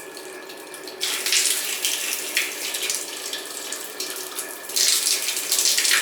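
Hotel shower spraying water, a steady hiss that gets louder about a second in and again near the end as the spray changes. The water pressure is not bad.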